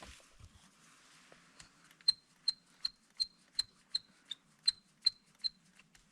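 Diesel dripping steadily from the opened drain of a tractor's fuel-water separator, a regular plink about every third of a second starting around two seconds in.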